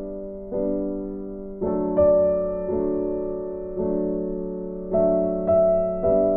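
Soft background piano music: slow chords struck every second or so, each fading away.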